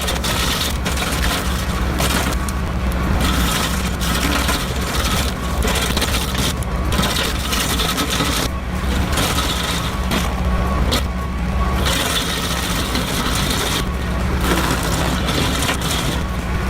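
A heavy machine's engine running steadily under load, with rough scraping and grinding of wood over it that eases off for moments every few seconds.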